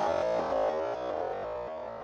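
Background music, synthesizer and keyboard notes, fading out gradually.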